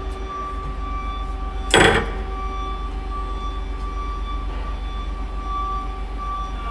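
Hyundai WIA SKT-200 CNC turning center running, a steady hum under several steady whining tones, with one short loud clack about two seconds in.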